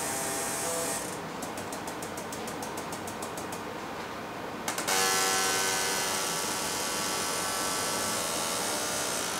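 Pneumatic robot arm working under a 5.0 kg load at its tip: a run of fast, even clicking, about seven a second, then a sharp click about five seconds in and a steady rush of air hiss with faint whining tones as the arm moves.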